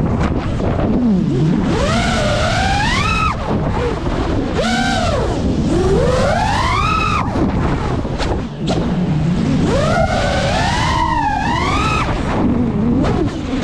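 A 5-inch FPV quadcopter's motors and propellers whine, the pitch sweeping sharply up and down several times as the throttle is punched and cut through flips and dives. A rough rushing noise runs underneath.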